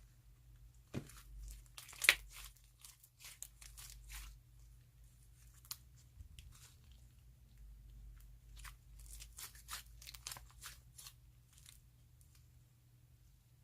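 Handmade slime mixed with snack pieces being squeezed and pressed, giving a string of crunches and crackles. One sharper, louder crunch comes about two seconds in.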